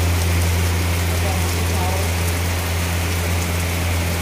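Rain falling steadily, an even hiss, over a steady low hum.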